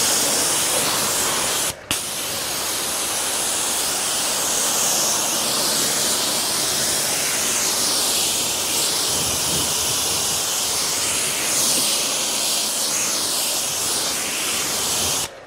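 Pressure washer spraying a jet of water onto a car's paintwork: a loud, steady hiss that breaks off briefly about two seconds in, when the trigger is released, then runs again until it cuts off near the end.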